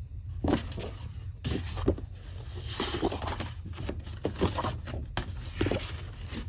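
Sheets of patterned scrapbook paper being handled and slid against one another, a string of irregular rustles and scrapes.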